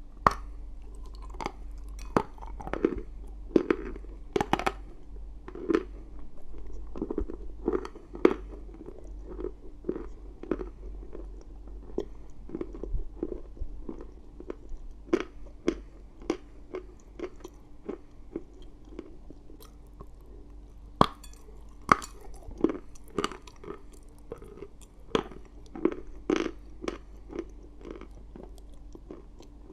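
Chalk being bitten and chewed close to the microphone: sharp, irregular crunches, several loud bites among them, with softer grinding chewing in between.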